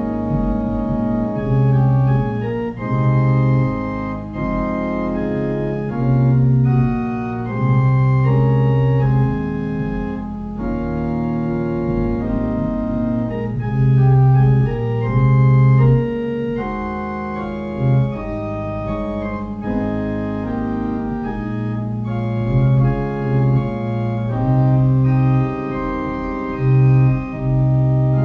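Organ playing a slow prelude of long held chords, the bass line moving every second or two.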